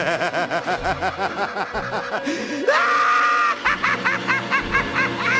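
Intro sound effect of evil laughter over music: rapid repeated cackles, rising about two and a half seconds in into a long held shriek, then more cackling.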